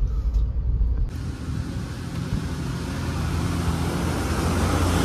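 Low car-engine rumble heard inside the cabin, then, after a sudden change about a second in, open roadside traffic noise with a steady low hum of a vehicle engine running nearby.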